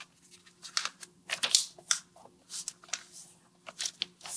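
A sheet of white paper being folded by hand and its creases pressed flat against a board: irregular crisp rustles and taps, several a second.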